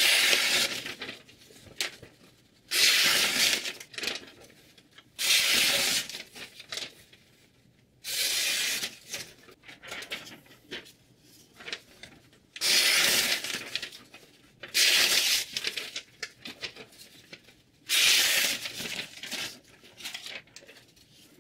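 Sheets of paper being sliced on the edge of a knife held in a sharpening-system clamp: seven strokes, each about a second of papery hissing with pauses between. The cuts test the sharpness of the freshly sharpened edge.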